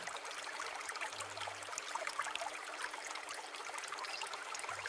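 Soft, steady trickle of running water, an even wash with small scattered drips and splashes in it.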